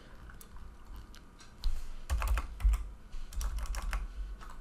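Typing on a computer keyboard: a run of irregular keystrokes, a few faint taps at first, then quicker and louder from about a second and a half in.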